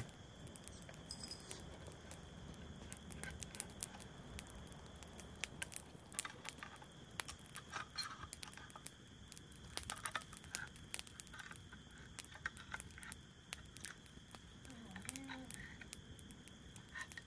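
Scattered light clicks, taps and rustles of small things being handled, over a faint steady high hiss.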